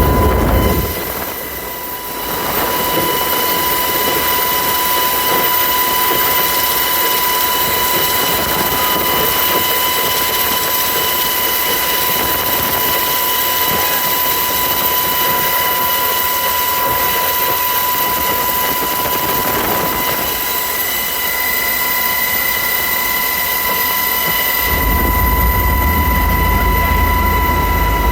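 UH-60 Black Hawk helicopter in flight, heard from the cabin: a loud, steady whine at several fixed high pitches over a hiss. The deep rumble drops away about a second in and returns near the end.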